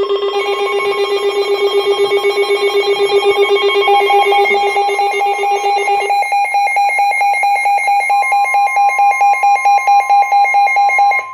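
Electronic emergency alert tone: a loud, buzzy alarm pulsing quickly, about eight times a second, that starts suddenly, shifts to a different pitch pattern about six seconds in, and is joined by a steady high tone about eight seconds in.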